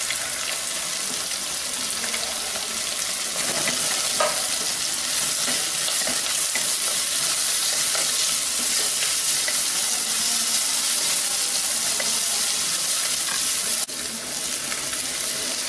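Chopped vegetables sizzling in hot oil in an unglazed clay pot, stirred with a wooden spatula: a steady frying hiss with brief stirring scrapes, dipping for a moment near the end.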